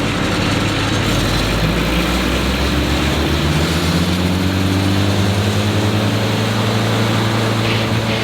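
Echo Bearcat 9-inch wood chipper's engine running, its pitch climbing steadily over a few seconds as it is throttled up from a low setting, then holding at the higher speed.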